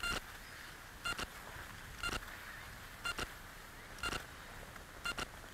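A short electronic beep repeating about once a second, twice as a quick double beep, over a faint steady background hiss.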